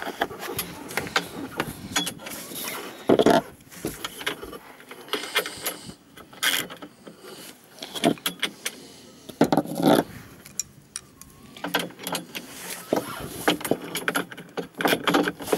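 Metal hand tools clinking and scraping as a socket and spanner tighten small bolts and nyloc nuts on a solar panel's aluminium mounting rails. Irregular clicks, with a few louder knocks about three seconds in and near the middle.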